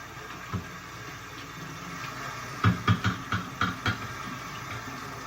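Hard knocks from parts being handled: one knock, then a quick run of about six clacks in just over a second, over a steady background hiss.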